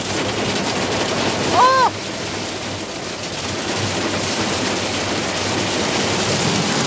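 Torrential rain mixed with hail beating on a car's roof and windows, heard from inside the car as a steady, dense rush.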